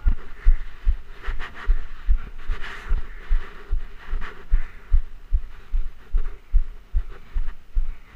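A 2013 Trek Rumblefish Pro mountain bike riding dirt singletrack, heard through a chest-mounted GoPro: a run of dull low thumps, roughly two a second, as the ride jolts the camera. Under them is a rushing hiss of tyres and wind.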